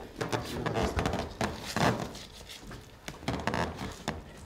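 Irregular knocks and thuds from a carbon-fibre leg brace and sneakers as the wearer is lowered onto his feet, loudest about two seconds in.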